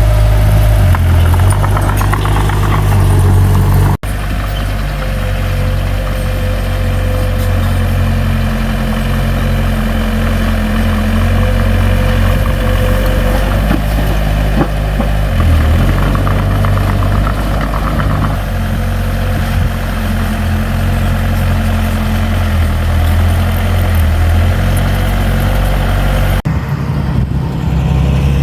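Diesel engine of heavy earthmoving equipment (bulldozer or dump truck) running steadily. The sound changes abruptly twice, about four seconds in and near the end.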